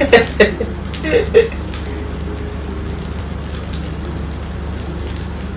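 Meat sizzling on an electric grill, a steady crackling hiss. A few short bursts of laughter come in the first second and a half.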